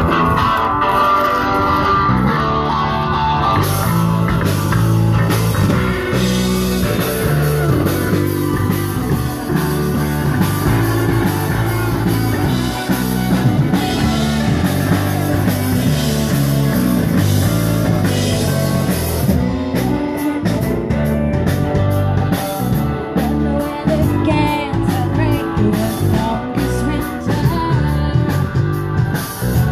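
A rock band playing at its sound check: electric guitar and drum kit, with a singing voice.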